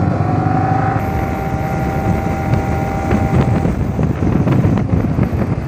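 Yamaha R15 V3's 155 cc single-cylinder engine running steadily in third gear at about 50 km/h, heard from the rider's seat with wind rushing over the microphone.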